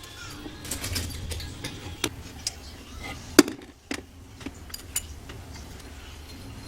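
Scattered clinks and knocks of kitchen utensils and dishes, with one sharper knock about three and a half seconds in.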